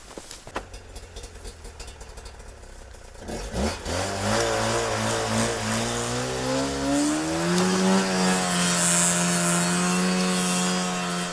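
Snowmobile engine idling low with a few clicks, then about four seconds in it revs up. Its pitch climbs for several seconds, then holds at a steady high note as the machine moves off.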